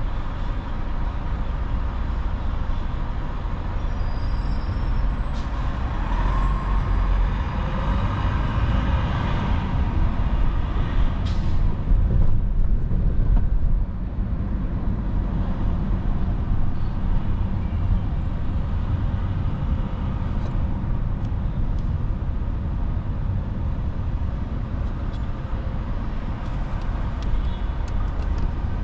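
City traffic and road noise heard from a car driving through downtown streets: a steady low rumble that swells in the middle with some hissing and a few sharp clicks, then drops suddenly about fourteen seconds in.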